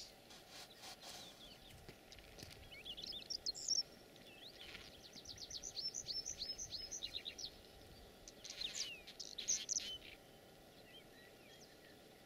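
Small songbirds singing: several phrases of quick, high chirps and trills, one of them a long run of rapid repeated notes midway, over a faint steady background hiss.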